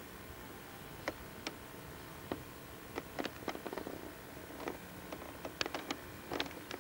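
Scattered, irregular light clicks and taps over a faint steady hiss, with small clusters around the middle and near the end.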